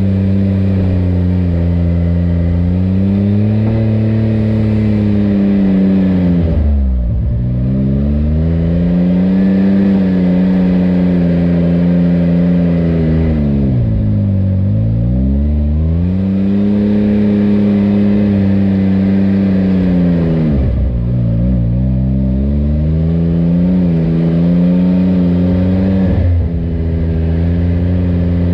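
Side-by-side UTV engine running under load; the revs drop sharply and climb back about four times.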